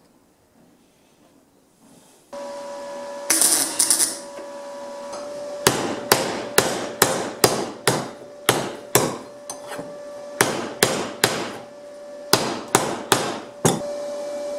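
A hand hammer strikes a thin steel disc on the bench, shaping it into a shallow cone for a pipe-top rain cap, at about two blows a second with short pauses, each blow ringing briefly. A steady hum runs underneath from about two seconds in.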